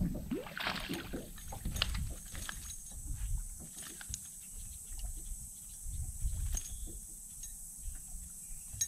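A hooked bass splashing at the surface beside the boat a little under a second in, followed by scattered knocks and clicks as the fish is lifted aboard and handled on the deck.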